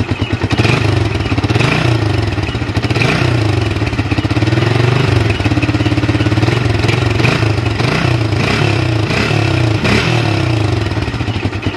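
Yamaha Vixion's 150 cc single-cylinder four-stroke engine revved repeatedly with the throttle, its pitch rising and falling several times, with a longer hold in the middle. The revving is a test of the charging voltage under throttle.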